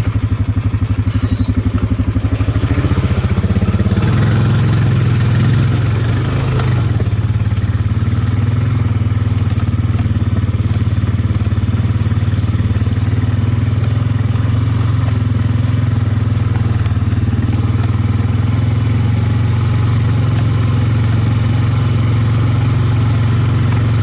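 2009 Honda Rancher ATV's single-cylinder engine, idling with a slow, even pulse for the first few seconds, then picking up revs about three seconds in and running steadily while under way.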